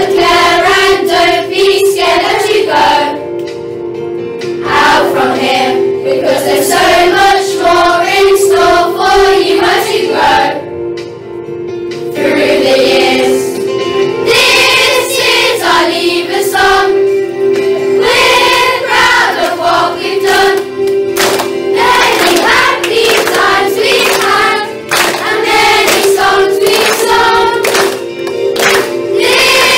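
A group of children singing a worship song together, with instrumental accompaniment holding sustained chords underneath.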